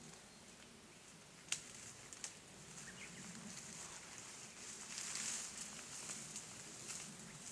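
Faint rustling and crackling in dry undergrowth. There is a sharp snap about one and a half seconds in and another shortly after, and the rustling swells around five seconds in.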